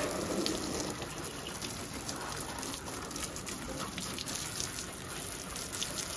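Water from a hose at light household pressure spraying into a car's engine bay, splashing steadily on the plastic engine cover and the parts around it.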